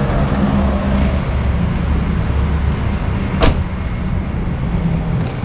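A car door slammed shut once, about three and a half seconds in, over a steady low engine hum.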